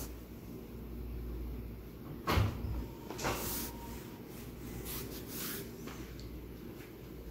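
A dull thump about two seconds in, then a lighter knock about a second later, over a low steady hum.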